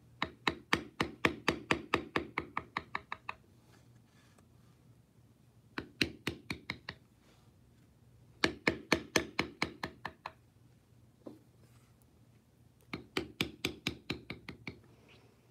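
Rapid runs of light taps, about six a second, in several bursts with short pauses and one lone tap: a mallet striking a checkered round beveler into leather, lifting the edges of tooled flower petals.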